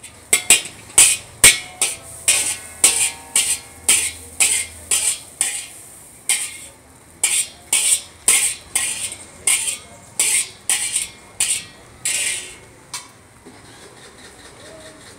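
Metal spatula striking and scraping a large wok in a steady, rhythmic clanging of about two strikes a second, the early strikes ringing on. A longer scrape comes near the end, then the clanging stops.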